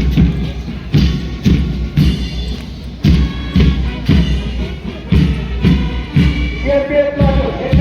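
Music with a heavy, steady beat of about two strong thumps a second; a held melody note comes in near the end.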